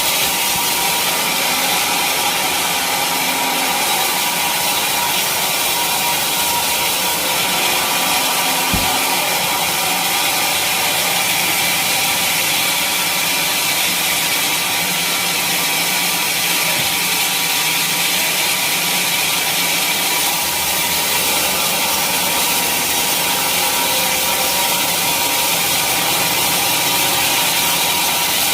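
Sawmill saw cutting steadily through a teak log, a continuous hissing rasp of blade in wood.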